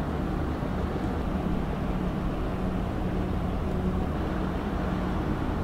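Large marine diesel engines running steadily under load during a tug-assisted ship manoeuvre: a constant low drone with a steady hum.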